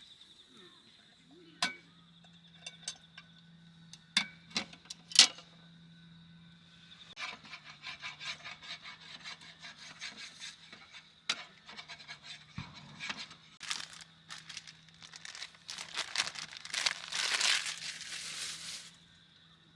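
Handling noise: a few sharp knocks, then a long run of quick scraping and clinking that is loudest near the end and stops shortly before it.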